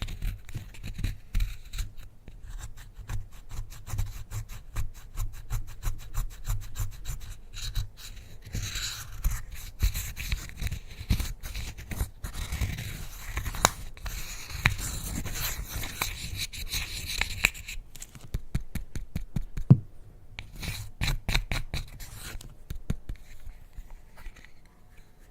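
Slime being worked by hand, with a dense run of small sticky clicks and pops. A louder crackling, scraping stretch sits in the middle, and one sharper snap comes near the end.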